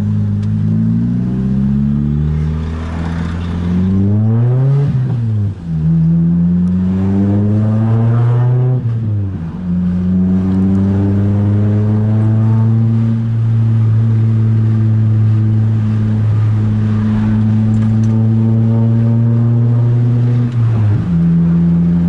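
VAZ-2114 car engine and exhaust pulling away through the gears: the engine note climbs, falls at gear changes about 5 and 9 seconds in, then holds a steady drone under way, dipping briefly again near the end.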